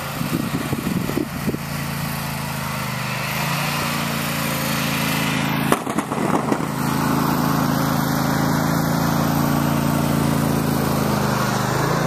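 Riding lawn tractor's small engine running steadily while it pushes snow with a front plow blade, a little louder in the second half. A couple of brief knocks come about halfway through.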